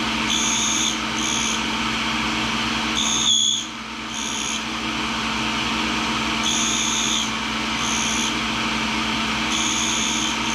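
Tool and cutter grinder running steadily while the carbide tip of a hand scraper is ground. Each pass of the blade across the wheel gives a short, high-pitched grinding whine. The passes come mostly in pairs, a few seconds apart.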